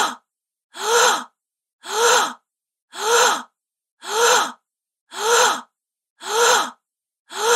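A woman's gasp, the same recording repeated about once a second, about seven times. Each gasp is short, with a breathy voiced pitch that rises and then drops, and silence in between.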